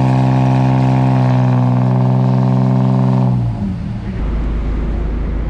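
A Jeep Grand Cherokee's engine on a hub dyno runs loud at a steady, held rpm under load. After about three and a half seconds the throttle comes off and the engine note falls away.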